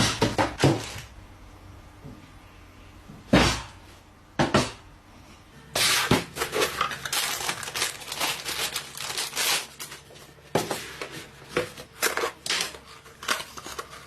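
PC component packaging being handled and opened: a few sharp knocks, then from about six seconds a long stretch of crinkling and tearing of plastic and cardboard, thinning to scattered clicks near the end.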